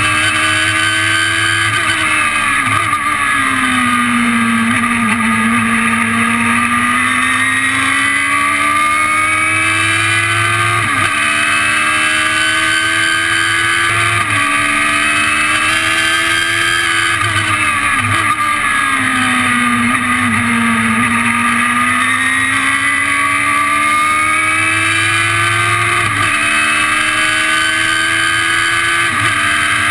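Radical SR3's motorcycle-derived four-cylinder engine heard from the open cockpit at speed on a track. Its revs climb and break with several quick upshifts, and twice fall away and stay low through slow corners before building again. Wind rushes steadily past the cockpit throughout.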